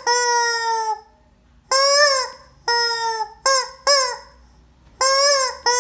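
Rubber squeeze-toy chicken squawking about seven times, each squawk a nasal, slightly arching tone between short pauses.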